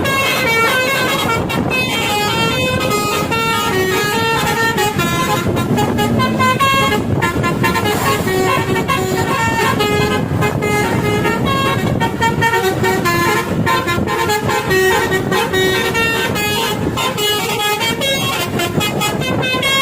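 Indonesian bus 'telolet' horn: a set of multi-tone horns playing a quick tune of short notes that step up and down in pitch, without a break, over a steady noisy background.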